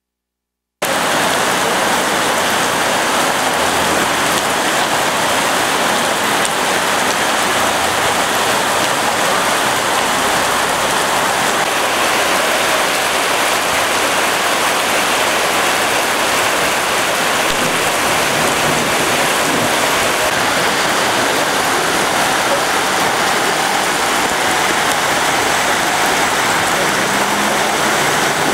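Heavy rain pouring down in a steady downpour on flooded streets, a dense hiss that comes in abruptly about a second in.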